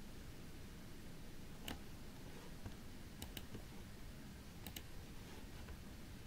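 Faint clicks of a computer mouse: one click about a second and a half in, then two quick double clicks about three and about four and a half seconds in, over a low steady hiss.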